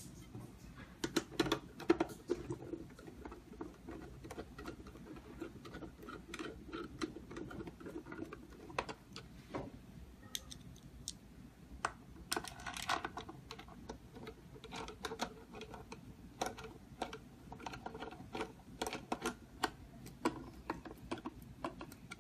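Irregular small clicks and taps of hands handling and fitting door lock hardware. The clicks come in denser clusters about a second in and again around twelve seconds in.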